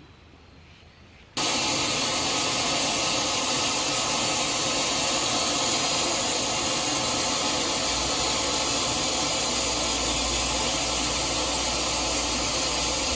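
Valley stream water rushing steadily, a loud even hiss that cuts in abruptly about a second in.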